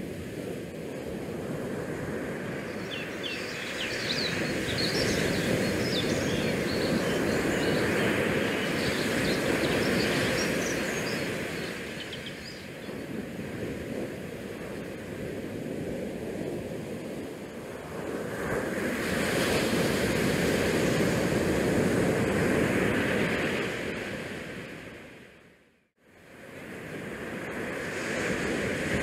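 Wind rushing over an action camera's microphone, swelling and easing in gusts, with a few faint high chirps a few seconds in. It fades briefly to near silence near the end, then returns.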